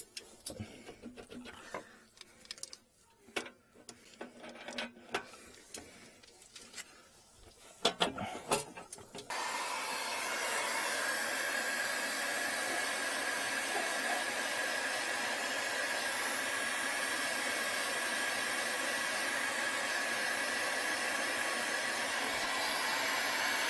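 Scattered clicks and metal knocks from pliers working on brass heating-distributor fittings. About nine seconds in, an electric heat gun switches on and runs steadily: a blowing fan with a thin steady whine.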